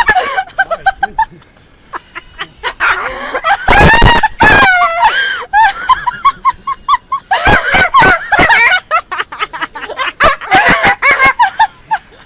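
Parrot screeching and chattering: a loud screech about four seconds in, then a run of short repeated chirps and more rapid chatter.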